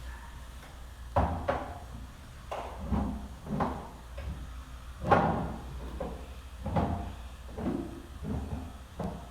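A string of about nine irregular knocks and thuds of kitchen cupboard doors and objects being handled, the loudest about halfway through.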